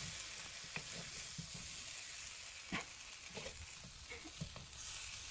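Honey-orange-glazed chicken pieces sizzling in a hot non-stick frying pan, the sauce cooked down to the point of starting to burn. A wooden spatula scrapes and knocks against the pan a few times as the pieces are moved.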